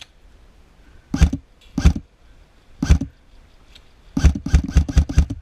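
Airsoft gun firing: a few single shots about a second apart, then a quick string of about seven shots near the end.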